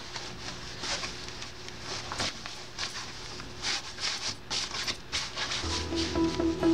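Cotton bed sheet rustling in irregular strokes as hands tuck and pull it tight under a mattress corner. Music comes in near the end.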